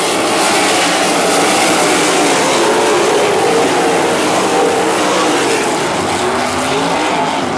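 A pack of open-wheel dirt-track race cars at race speed: a loud, dense mix of engines whose pitches waver up and down as the cars go by.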